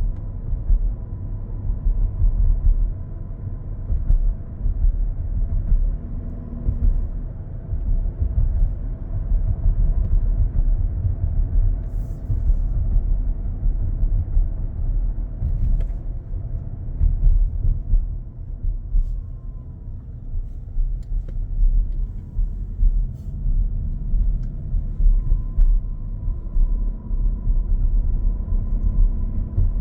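Cabin of a 2025 Toyota Grand Highlander Hybrid driving: low road rumble with a thin, steady high-pitched electrical whine over it. The whine is plain at first, fades through the middle and comes back strong near the end. The owner reports this noise is worst under acceleration.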